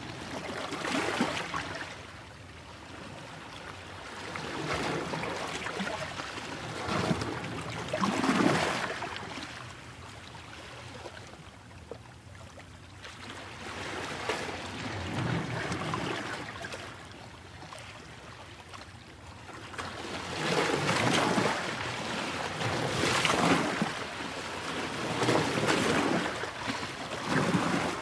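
Aquarium water bubbling and gurgling, swelling and fading in uneven surges every couple of seconds.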